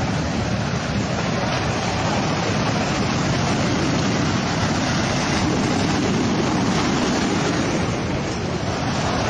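Surf breaking and washing up a pebble beach: a steady rushing noise, with wind on the microphone.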